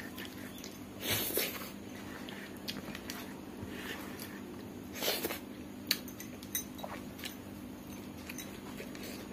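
Hand-eating sounds: fingers sweeping and scraping rice across a banana leaf, with biting and chewing. There are two longer swishes, about a second in and about five seconds in, and small clicks in between, over a steady low hum.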